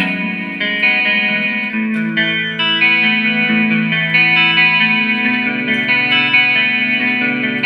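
Guitar music: held notes and chords that change about once a second.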